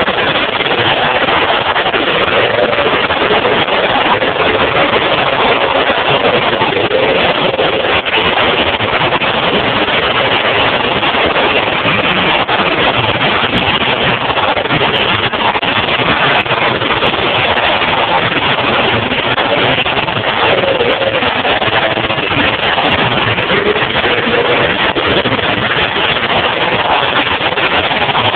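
Demolition derby cars' engines running and revving together in a loud, constant din, with engine pitch wavering up and down.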